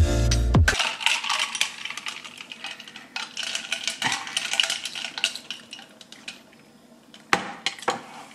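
Ice clinking against a glass as an iced matcha latte is stirred with a straw, in many small quick clicks that thin out and fade, with one louder knock near the end.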